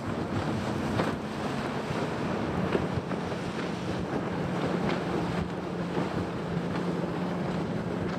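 Bass boat's outboard motor running at high speed some way off, a faint hum that sinks slowly in pitch as the boat moves across and away, under heavy wind noise on the microphone.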